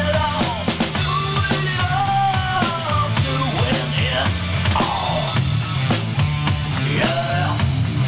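Rock music with a steady drum beat, bass and a gliding melody line.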